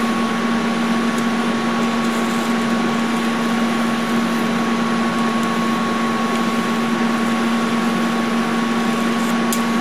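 TIG welding arc from a Lincoln Square Wave TIG 200 burning steadily: a constant buzzing hiss with a steady hum, as weld metal is built up.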